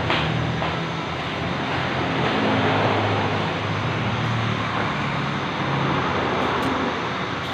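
Suzuki Satria FU 150 single-cylinder four-stroke engine running steadily, just refitted with a new clutch housing.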